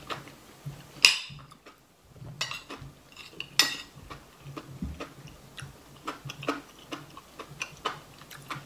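Eating at close range: a metal spoon clinking against a ceramic bowl, sharply about a second in and again after three and a half seconds, between many small clicks of chewing.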